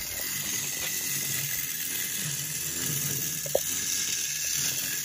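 Clockwork spring motor of a Schylling tin wind-up Atomic Robot Man running as the toy walks: a steady mechanical whirr, with one sharp click about three and a half seconds in.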